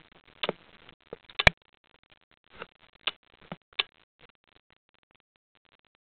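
Irregular sharp clicks and knocks on an underwater camera's sealed housing, heard through the housing, about eight in six seconds. The loudest comes about one and a half seconds in.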